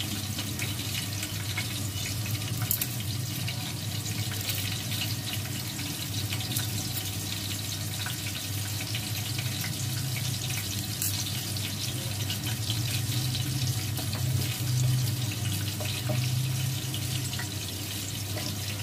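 Tap water running and splashing in a kitchen sink, over a steady low hum.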